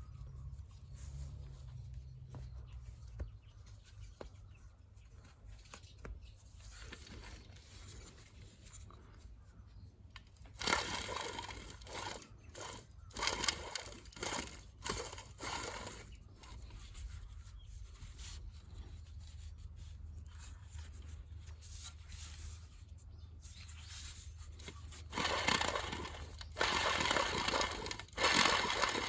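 Honda Vamos engine running with a steady low hum, its failed rebuilt alternator giving off an abnormal noise: a run of harsh, irregular bursts starting about ten seconds in, and again near the end.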